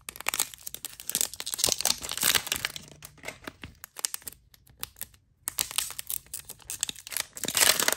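Plastic wrapping on a Zuru 5 Surprise toy ball crinkling and tearing as it is unwrapped by hand, with a short pause about four seconds in before the crackling resumes.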